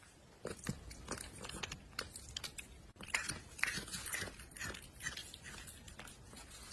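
Kitten smacking its lips and licking off milk: a run of quick, irregular wet clicks.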